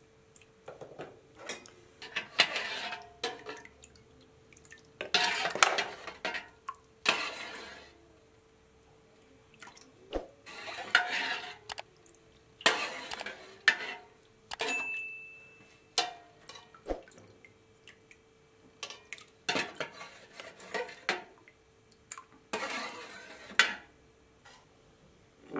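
Metal spoon clinking and scraping against an aluminium pot while boiled cow leg pieces are lifted out of broth, with splashing and dripping, and meat and bone pieces set down in a second aluminium pot. The handling comes in irregular short bursts, about a dozen in all.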